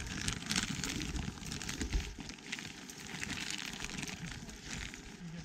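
Woodland debris of dry twigs, branches and leaf litter rustling and crackling as it is moved, with many small sharp snaps.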